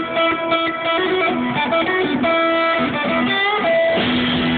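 Electric guitar playing a lead melody of long held single notes, with a bent note about three and a half seconds in, heard live through a concert sound system.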